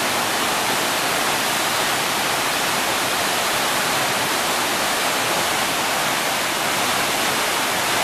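A tall waterfall plunging into its pool: a steady, even rush of falling and splashing water.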